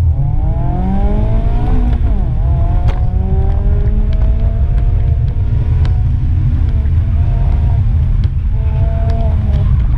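Mazda MX-5 Miata's four-cylinder engine under hard acceleration. The revs climb for about two seconds, drop sharply at an upshift, then rise and fall with the throttle, with another pull near the end. A heavy, steady low rumble of wind and road noise comes through the open-top cabin throughout.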